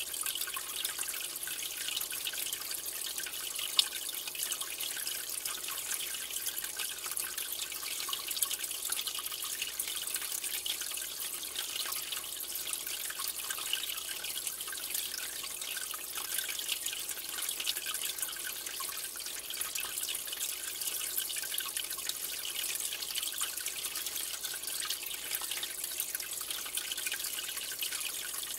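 Aquarium water circulating: a steady fine trickle with many tiny drips and crackles, and a couple of sharper ticks about four and eight seconds in.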